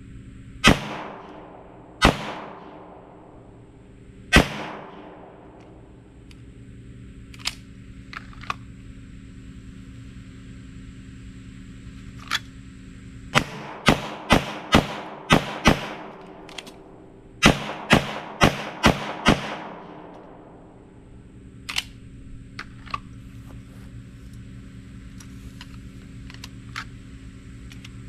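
Sig Sauer P320 Spectre Comp pistol firing: three single shots a second or two apart, then two quick strings of about six shots each. Fainter sharp clicks fall between them.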